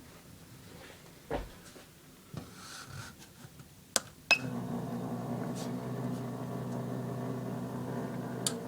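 A few clicks and knocks, then about halfway through a sharp click and a motor coming straight on, running with a steady hum.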